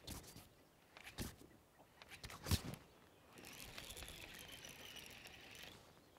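A few knocks on the boat, the loudest about two and a half seconds in, then a steady high whir of a fishing reel being cranked, which eases off shortly before the end.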